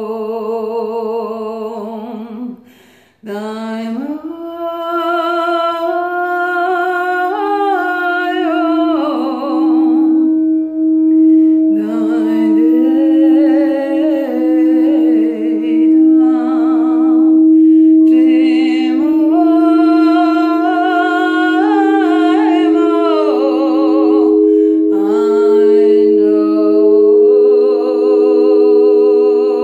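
A woman singing wordless, wavering melodic lines and humming, with a brief pause for breath about three seconds in. Under her voice, crystal singing bowls ring: one steady tone comes in about a third of the way through, and a second, higher held tone joins it about two-thirds through.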